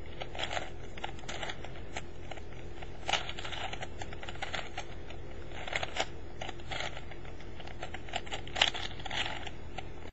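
Layers of a plastic Rubik's Revenge (4x4x4) puzzle cube being turned by hand through an algorithm: a run of irregular plastic clicks and clacks, with louder ones about three, six and eight and a half seconds in.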